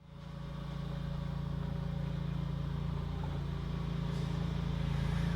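A motor engine idling with a steady low, pulsing hum, fading in from silence and growing louder over the first second.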